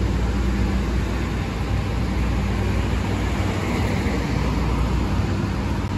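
Nova Bus LFS city bus with its engine running low and steady, under an even hiss of street traffic noise.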